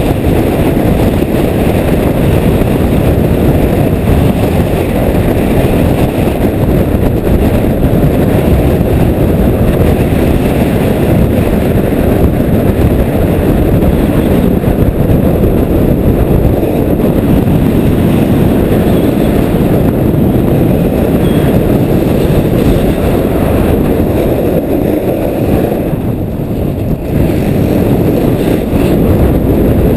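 Heavy wind buffeting the microphone at full speed, a loud, steady rumble that eases briefly near the end.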